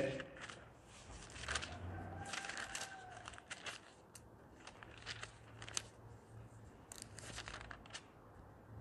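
Pages of a Bible being leafed through: faint, irregular paper rustling and flicking.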